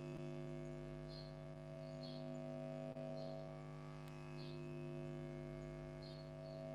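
Steady electrical mains hum on an open call line, with faint short high chirps about once a second.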